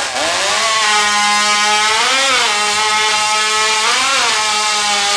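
Open-class racing chainsaw revving up right after its cold start, then running at a high, steady pitch with two brief rises in pitch about two and four seconds in.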